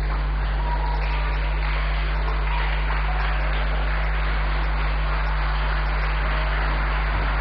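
Steady electrical mains hum with a constant hiss underneath; no distinct event stands out.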